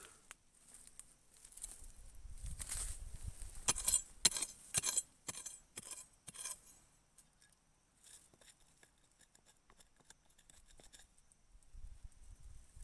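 Long steel digging bar stabbing and prying into dry, stony soil around a shrub's roots: a quick run of about ten sharp scraping strikes, then faint crackles of soil and roots.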